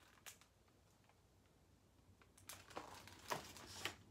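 Pages of a picture book being handled and turned: near silence, then a few short paper rustles and taps in the second half.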